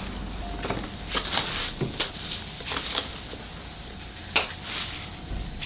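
Thin plastic nursery pot crinkling and clicking as it is handled, in a series of short separate rustles.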